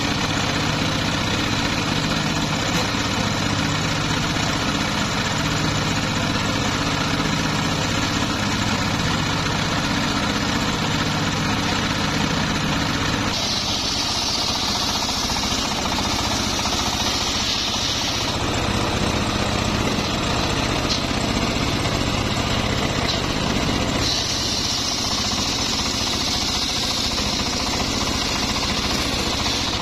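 Homemade table circular saw, its engine running steadily and driving a large blade. The blade cuts through a log with a high whine twice: for about five seconds midway and again near the end.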